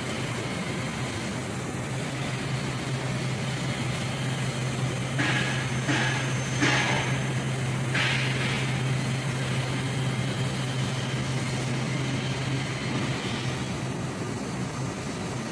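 2010 Trumpf TruLaser 3030 4000-watt CO2 laser cutter cutting sheet metal: a steady hiss over a low machine hum. A few short, sharper hissing bursts come about five to eight seconds in, and the hum stops shortly before the end.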